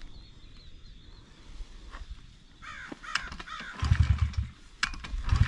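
A crow caws several times. Then come two short, loud, low rumbles about a second apart, fitting kicks at the kick-starter of a brand-new Honda 50cc that turns over but does not catch.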